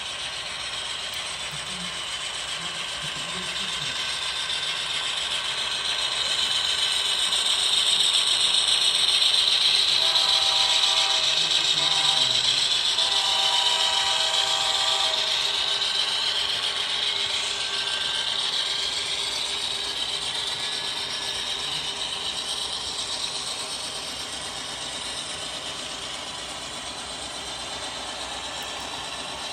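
HO scale model freight train rolling slowly on the layout track: a steady clicking rattle of wheels and gearing on the rails, growing louder through the middle as the BNSF diesel units pass close by, then easing off.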